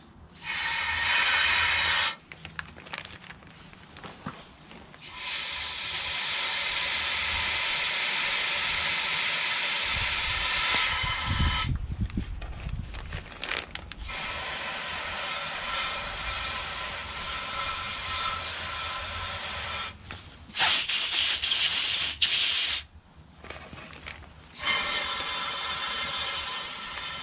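Compressed-air blow gun hissing into a lawnmower gas tank under a plastic bag, in several bursts that start and stop abruptly, blowing out a tank flooded with water.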